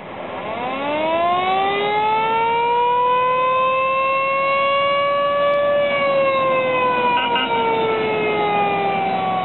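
Siren of a 1936 Ford V8 fire engine winding up in one long slow wail, rising for about five seconds, then slowly falling away. A brief pair of higher tones sounds about seven seconds in.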